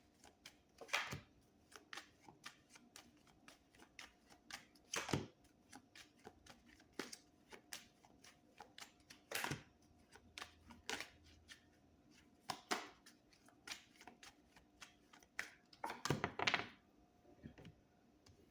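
A tarot deck being shuffled by hand: a quick, uneven run of soft card slaps and flicks, with a few louder strokes and a longer riffle near the end.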